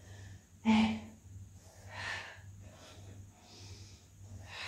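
A woman breathing hard through a weighted crunch: a short voiced exhale about a second in, then softer audible breaths in and out, paced with the lift and lowering.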